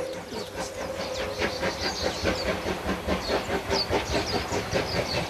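Steam locomotive working past, its exhaust beating about three or four times a second with hissing steam.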